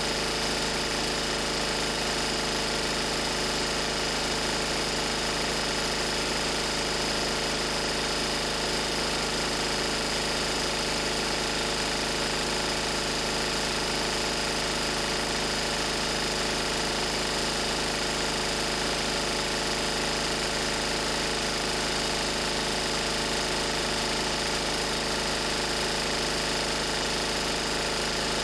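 Lister Petter AD1 single-cylinder air-cooled diesel generator set running steadily at its governed 3000 rpm.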